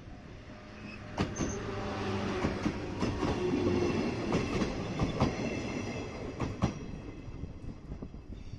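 JNR Class 105 electric train passing close by: the running noise of the cars with repeated sharp clacks of wheels over rail joints, building about a second in and easing off near the end.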